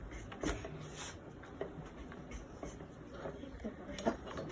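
A utensil stirring grits in a container, making light, irregular clinks and scrapes.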